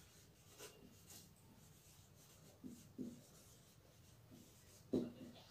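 Whiteboard marker writing on a whiteboard: a few faint, short squeaking and scratching strokes with pauses between them, the last one, about five seconds in, the strongest.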